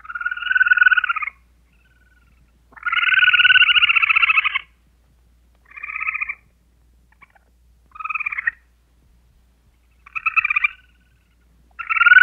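An animal's trilling calls: six short, rapid trills with pauses between them, the second the longest at about two seconds.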